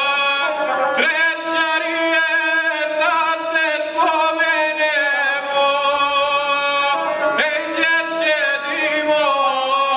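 A man singing a chanted epic song to his own gusle, the one-stringed bowed folk fiddle, whose bowed string sounds under his voice throughout.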